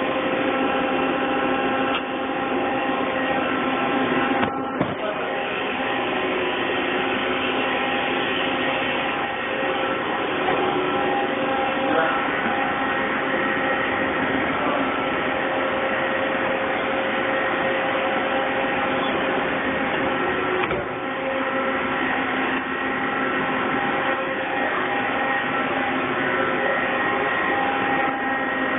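Steady whir and hum of running machine-shop machinery, several steady tones over an even noise. The sound dips briefly about four and a half seconds in and again about 21 seconds in.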